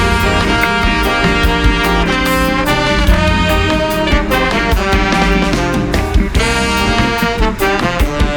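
Background music with a brass section and a steady beat.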